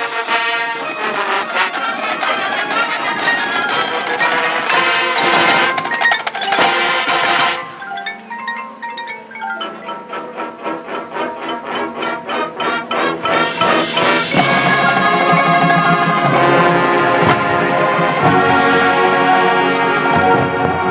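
Marching band music led by mallet percussion: marimbas, xylophones and glockenspiel playing with drums and brass. About eight seconds in the full sound drops to a thinner passage of evenly repeated notes, and about fourteen seconds in the full band comes back in louder.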